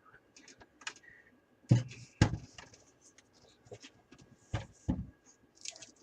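Irregular clicks and knocks of small hard parts being handled while a USB port device is wired up, with a few louder knocks about two seconds in and again near five seconds.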